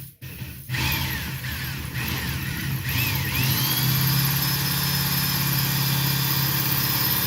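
Power drill running under load while drilling, its pitch dipping and rising a couple of times before it settles into a steady whine.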